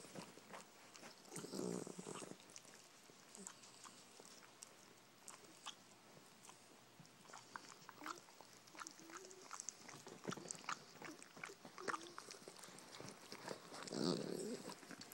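A dog licking a person's face up close: a run of quick, wet smacking clicks, with louder bursts of sound about two seconds in and near the end.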